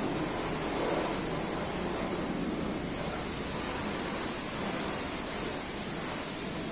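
Freshly overhauled JCB 444 four-cylinder diesel engine running steadily.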